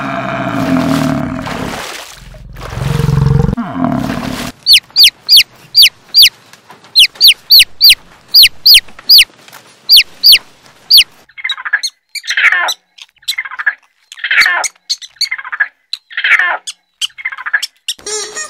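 Young chicks peeping: a run of short, high, falling peeps, about two or three a second, for several seconds from about a quarter of the way in. Before it comes a loud, low sound, and after it a series of rougher, lower calls.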